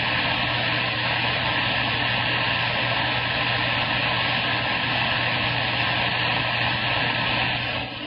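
CB radio receiver hissing with open-channel static after the transmission ends. The hiss is a steady, even noise cut off above the radio's narrow audio range, with a low hum and faint steady whistles under it, and it drops away sharply near the end.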